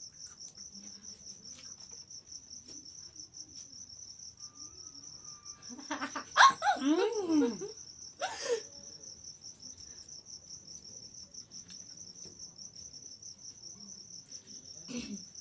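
Crickets chirping steadily in a fast, even pulse. About six seconds in, a person's voice breaks in with a loud, short outburst whose pitch slides down, followed a moment later by a brief second sound.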